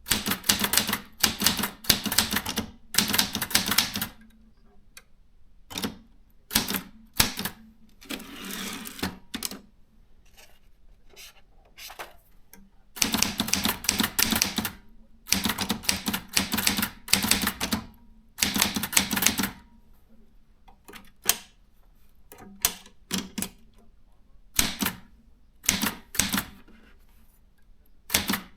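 Brother 440 TR typewriter being typed on: runs of rapid key strikes broken by pauses and scattered single strikes, with a smoother continuous mechanical sound of about a second and a half some eight seconds in.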